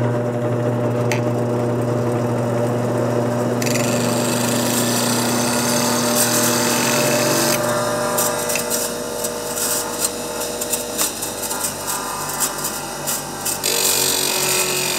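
Steel City bench grinder running with a steady motor hum while the steel edge of a beading and parting tool is ground on its wheel. A scratchy grinding noise starts about four seconds in and comes and goes as the tool is pressed and slid across the wheel.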